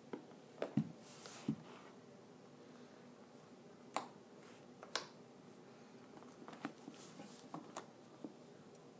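Glossy slime being squished and pressed by hand, giving scattered small wet pops and clicks.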